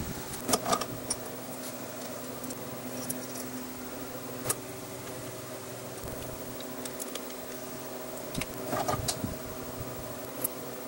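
Light metal clicks and clinks from a small horizontal milling machine's table handwheel and leadscrew collar being handled and fitted: a few about half a second in, one near the middle, and a small cluster near the end, over a steady low hum.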